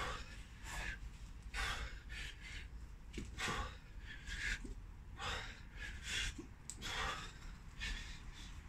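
A man's sharp, forceful breaths, about one a second, in time with one-arm kettlebell swings.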